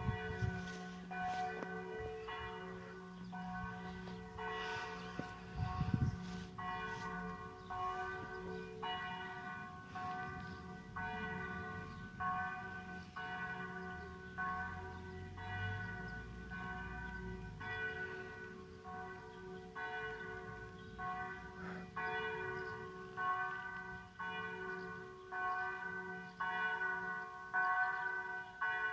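Church bells ringing in a steady peal, about one strike a second, each stroke's tones ringing on under the next.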